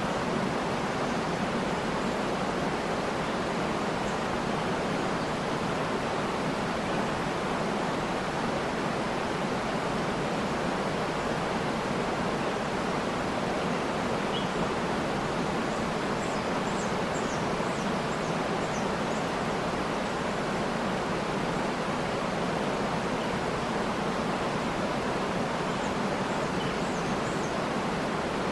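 Waterfall rushing in a steady, even roar, with a few faint high bird chirps over it, a cluster about halfway through and again near the end.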